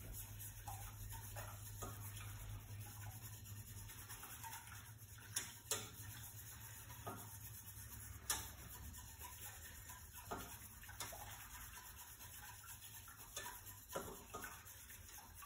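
A spoon stirring a sauce in a pot on the stove: soft scraping with a few scattered light clinks of the spoon against the pot, over a low steady hum.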